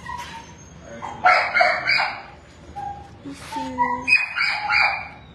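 Shelter dogs barking in their kennels: two bursts of three or four sharp barks, about a second in and again about four seconds in.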